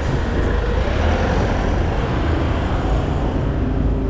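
Dense city street traffic: the engines of cars, a motorcycle and a city bus running close by, heard as a steady noise with a heavy low rumble.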